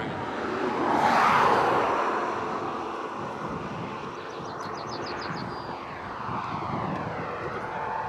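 A passing vehicle: a rushing whoosh that swells to its loudest about a second in and fades away, followed by a fainter, steady rush of road or air noise.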